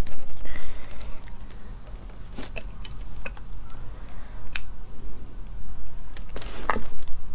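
Scattered small clicks and wet squishes as cooked sea snail shells are handled and their meat is picked out with a toothpick, with a slightly louder click near the end, over a steady low hum.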